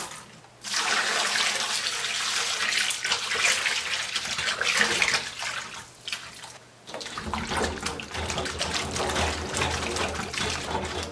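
Water pouring from a glass jar into a stainless steel bowl of beets, foaming with veggie wash. After a short lull about six seconds in, hands swish and scrub the beets in the water.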